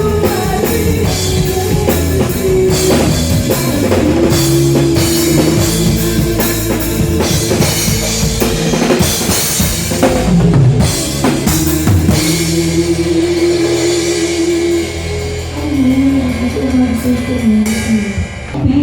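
Live Christian rock band playing, with the drum kit prominent over bass and held chords; the music thins out near the end.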